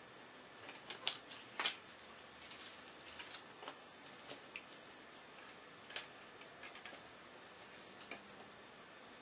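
Plastic Lego bricks clicking as they are handled and pressed together: scattered short sharp clicks, the loudest a cluster about a second in.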